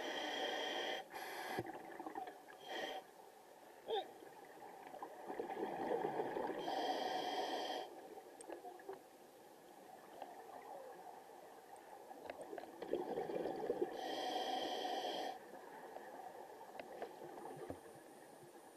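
Scuba diver breathing through a regulator underwater: breaths and bubbling come in loud bursts about a second long, at the start and again about 7 and 14 seconds in, with fainter bubbling and hiss in between.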